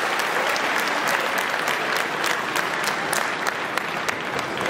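Large arena crowd applauding, a dense, steady patter of many hands clapping.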